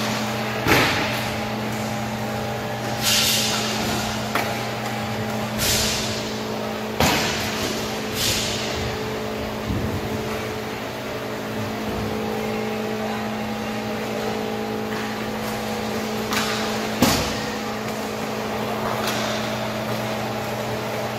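Inline hockey play heard through the rink glass: a few sharp cracks of sticks and puck against the boards, and several short scraping hisses, over a steady hum.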